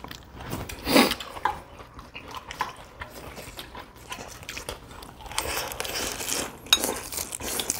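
Crunchy food being bitten and chewed, with many short crackling clicks and a louder crunch about a second in.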